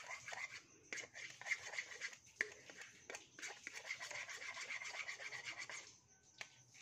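Metal table knife stirring and scraping against the inside of a small white bowl, dissolving food colouring into a little liquid, with repeated uneven scrapes and light clicks. The scraping stops about six seconds in.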